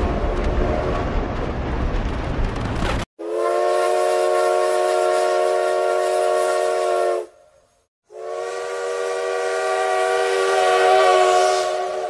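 A steam locomotive's chime whistle blown in two long blasts of about four seconds each, several notes sounding together, with a short gap between. Before them a train whistle sounds over a heavy low rumble, cutting off suddenly about three seconds in.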